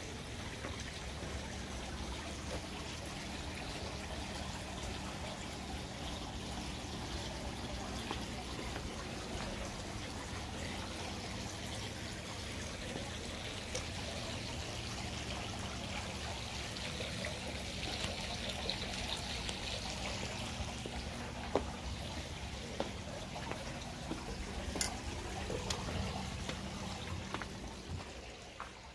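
Water trickling and pouring steadily, with a faint low steady hum underneath; the sound fades away near the end.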